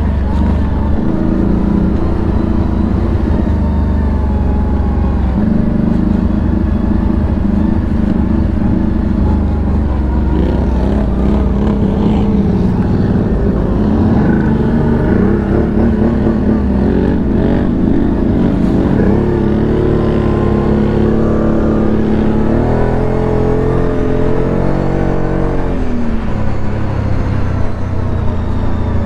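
CF Moto CForce 1000 ATV's V-twin engine running, its revs rising and falling with the throttle, with a stretch of higher revs about three-quarters of the way through.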